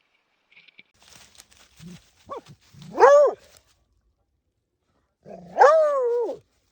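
Two drawn-out canine barks, each rising and then falling in pitch, the second longer; light rustling comes before them.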